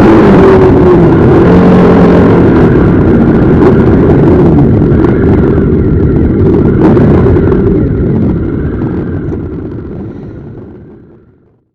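Many motorcycle engines running and revving together, loud, with overlapping rising and falling engine notes; the sound fades out over the last few seconds.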